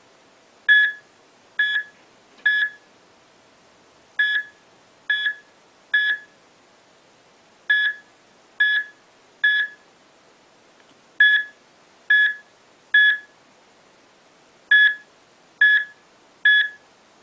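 Short, high electronic beeps in groups of three, about one beep a second, with a pause of about a second and a half after each group. The pattern repeats steadily five times.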